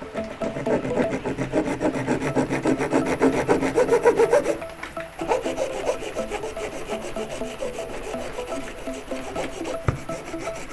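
Hacksaw blade sawing through the edge of a fan magnet in quick back-and-forth strokes, heavier for the first four or five seconds and then lighter.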